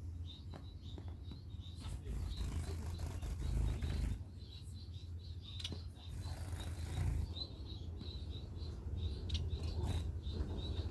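Society finches (Bengalese finches) giving short, high chirps over and over, with scattered light clicks and two brief bursts of rustling.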